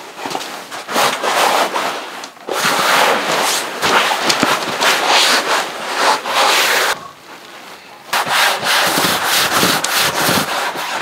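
Therm-a-Rest NeoAir XLite NXT inflatable sleeping pad crinkling and rustling as a person shifts and rolls on it, laid directly on a Tyvek sheet. The rustle comes in bursts, with a short lull about two and a half seconds in and a quieter stretch around seven seconds in. It is a mid-pitched rustle with little of the sharp crackle of the older XLite.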